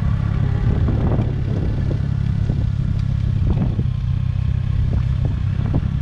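Motorcycle engine running steadily while riding along a mountain road, with a dense low rumble and a few light rattles.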